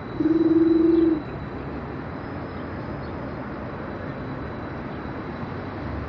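A pigeon-like coo: one level call about a second long, loud and close, at the very start, then the steady background noise of a city street.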